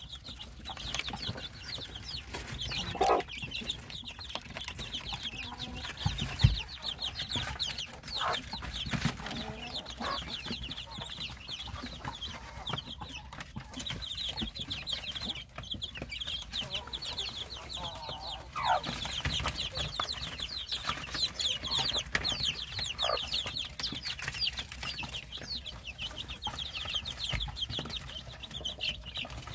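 A brood of young chicks peeping in a continuous chorus of high, quick cheeps, with a few lower clucks from the mother hen, a Korean native chicken, here and there.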